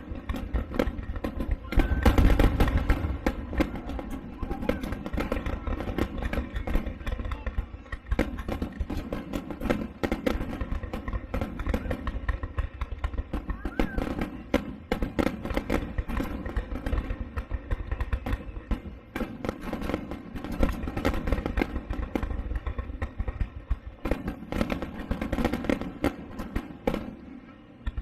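Fireworks crackling and popping in rapid, dense succession over a low rumble.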